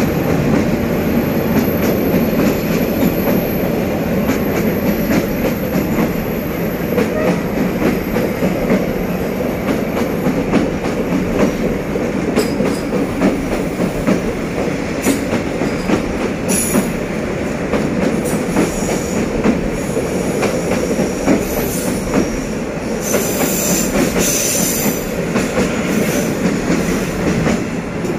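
Coaches of the SE6 express passenger train rolling past on a curve: a steady rumble of steel wheels on the rails with the clickety-clack of rail joints. High-pitched wheel squeal comes and goes in the second half.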